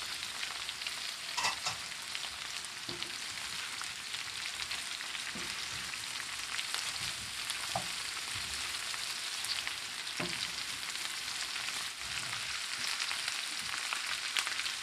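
Chopped vegetables (cabbage, carrots, chayote and green beans) sizzling in hot oil in a pan as they are stir-fried, with a few light knocks from the stirring.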